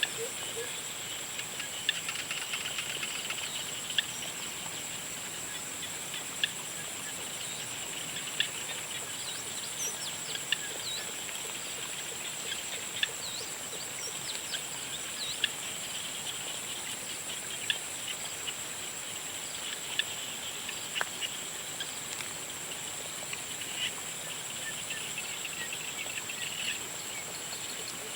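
Dusk chorus of frogs and insects: a steady high-pitched insect trill with a chirping haze beneath it, and short sharp calls standing out every couple of seconds.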